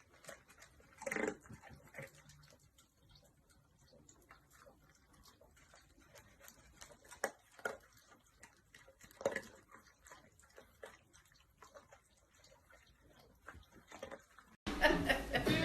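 A dog's small sounds while moving about: irregular light clicks with a few short louder noises, about 1, 7 and 9 seconds in. Music starts about a second before the end.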